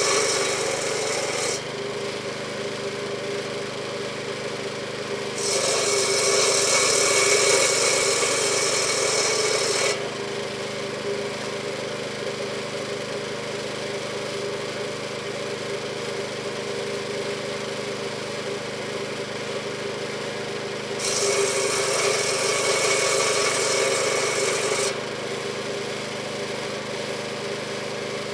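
Petrol saw bench with a 15-inch circular blade driven by a Honda-type single-cylinder engine, running steadily. The blade cuts through logs three times: one cut ends just over a second in, another runs from about five to ten seconds in, and a third from about 21 to 25 seconds in. Each cut is louder and hissier than the steady running between them.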